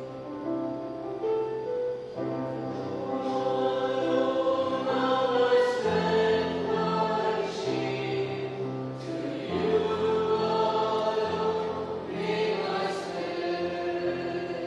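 Choir singing a church hymn in slow, held chords.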